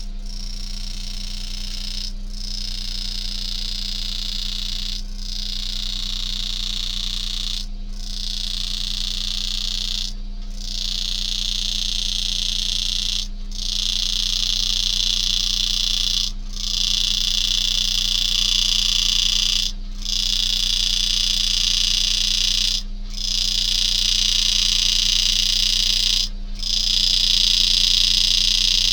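A power engraving handpiece buzzes steadily at a high pitch as it drives a graver into a coin. It stops for a moment about every three seconds between cuts, over a constant low electrical hum.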